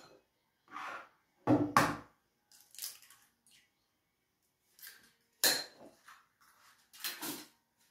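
Eggs being cracked into a glass bowl: a few short knocks and clicks of eggshell against the glass, and of the shells being handled, with quiet between them.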